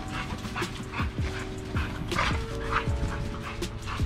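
Background music with a steady beat of deep bass-drum hits and held chords, with American Bully XL dogs yipping and whimpering over it.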